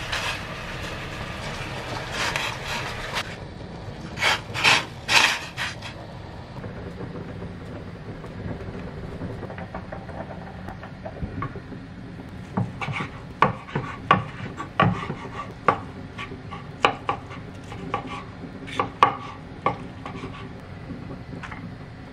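Kitchen food-prep sounds: irregular knocks and rubbing of hands and a knife on a wooden cutting board as boiled chicken breast is pulled apart, coming thickest in the second half.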